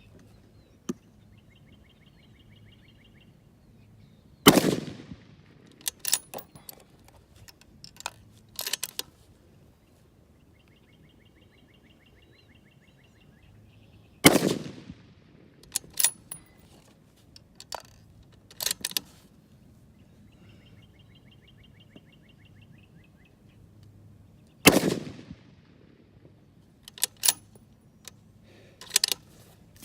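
A 6.5 Creedmoor bolt-action rifle fitted with a steel muzzle brake fires three shots about ten seconds apart. After each shot come several sharp clicks over the next few seconds, typical of the bolt being worked to eject and rechamber. A faint, rapid ticking trill comes shortly before each shot.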